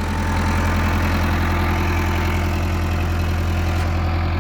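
Case 885XL tractor's four-cylinder diesel engine running steadily with a low, even drone.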